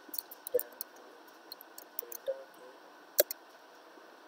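Computer keyboard typing: a string of irregular key clicks with short pauses between them, one sharper click about three seconds in.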